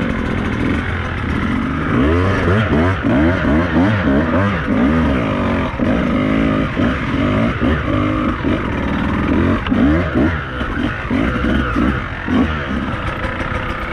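Beta 200RR dirt bike's two-stroke engine revving up and down in quick, repeated surges as the throttle is worked on and off.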